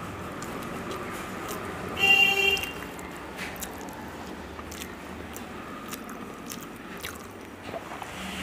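A person eating rice and fish by hand from a steel plate: chewing and small wet mouth clicks. About two seconds in, a short loud horn toot lasting about half a second is the loudest sound.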